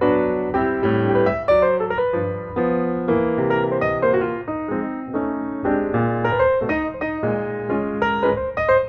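Background music: a piano melody with chords, notes struck one after another.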